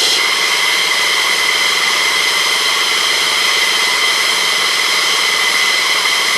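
Fighter jet's turbine engine running steadily on the ground: a loud, even whine with several high steady tones over a rushing hiss.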